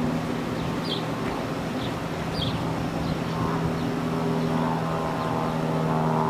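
Steady drone of jet engines, growing a little louder toward the end as a second set of higher steady tones comes in. A few short high bird chirps sound in the first few seconds.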